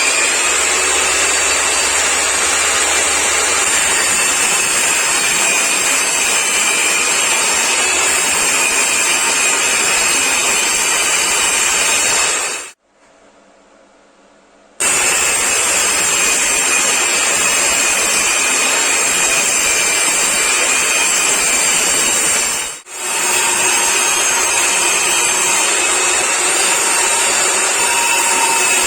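A woodworking power tool running steadily on wood, with a faint high whine over the noise. The sound drops out for about two seconds near the middle and dips briefly again later, then carries on.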